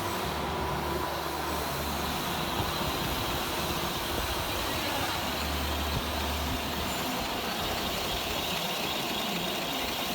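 Lathe running, a steady mechanical noise with a low hum that swells and fades twice.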